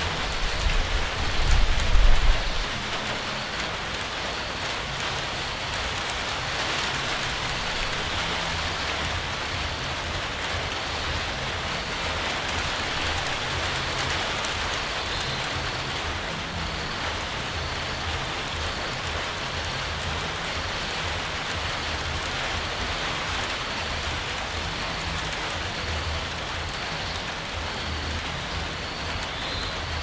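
Steady rain falling, a dense even hiss with a fine patter of drops. A low rumble swells briefly about a second or two in, then the rain carries on alone.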